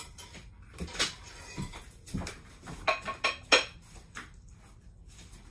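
Kitchen dishes and utensils being handled: irregular clinks and knocks, a few with a short ring, loudest in the middle and dying away near the end.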